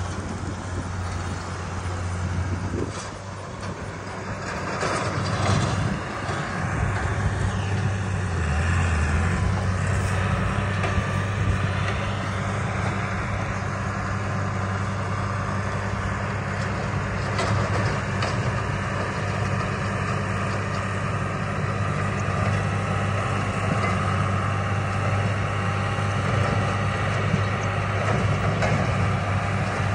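John Deere tractor engine running steadily while driving a bush hog (rotary cutter) through the field. It drops off briefly about three seconds in and picks up again about five seconds in.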